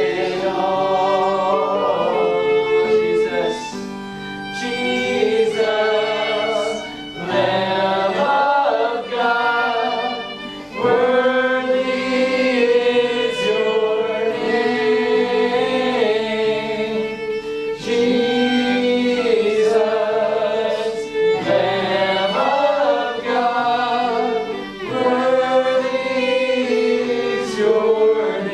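Slow worship music: several voices singing held notes over instrumental accompaniment.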